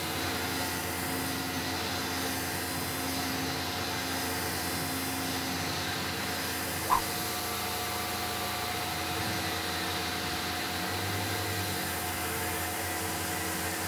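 Tormach PCNC 1100 CNC mill's spindle running an end mill through a cut in an aluminium gear blank: a steady machining noise with a held whine. A single sharp tick about seven seconds in.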